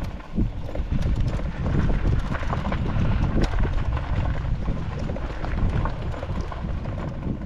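Motokettu vehicle being ridden over rough ground: its running noise comes with irregular clattering knocks, and wind buffets the microphone.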